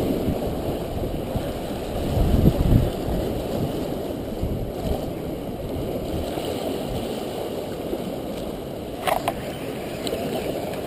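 Wind buffeting the microphone over waves washing against the rocks, with a stronger gust about two seconds in and a brief click near the end.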